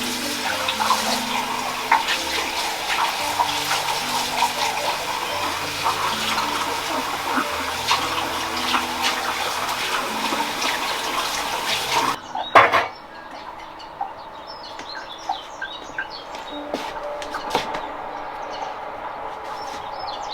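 Running water splashing over soft background music with slow low notes. About twelve seconds in the sound cuts, there is a sharp knock, and then birds chirp over a quieter background.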